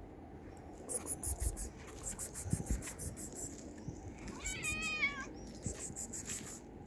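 Stray tabby cat meowing once, a single call of under a second that rises and then falls slightly, begging for food. Around it come runs of rapid light clicks and rustles.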